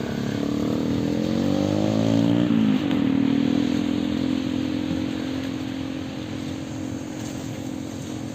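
Motorcycle engine accelerating with a rising pitch, dropping sharply as it shifts gear a little under three seconds in, then running steadily and fading as it moves away.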